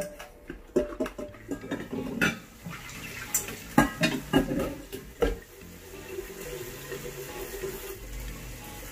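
Glass container being washed in a stainless steel sink: sponge scrubbing with sharp knocks and clinks of glass against the sink and pouring of soapy water. From about halfway, a tap runs steadily into the glass as it is rinsed.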